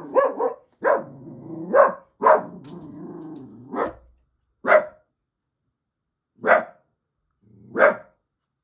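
Dachshund alarm-barking at noises from the neighbours: about eight sharp barks that come further apart toward the end, with low growling between the barks in the first four seconds.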